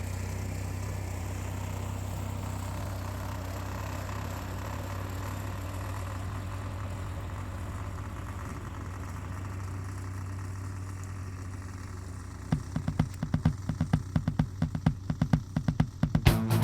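An engine idling steadily with a low, even hum. From about twelve seconds in, a louder, rapid and uneven run of sharp knocks or thumps comes in over it.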